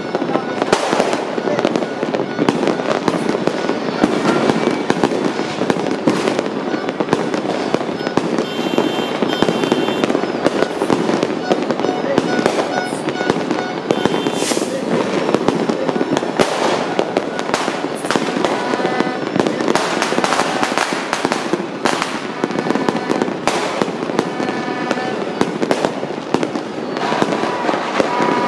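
Non-stop fireworks and firecrackers going off: many overlapping bangs and crackles with no pause.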